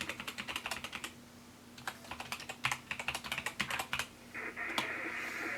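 Typing on a computer keyboard: a short run of rapid key clicks, a pause, then a longer run. About four seconds in, a steady hiss comes in and holds.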